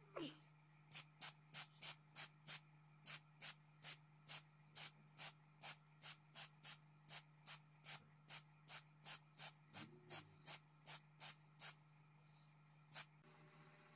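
Spray paint hissing out of a spray-paint can in short, quick bursts, about three a second, for some ten seconds, as a pressure gauge is painted black.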